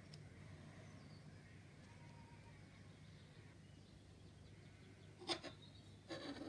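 Near silence with a faint steady hum, broken near the end by two soft knocks from hands handling small plastic model parts and a glue bottle.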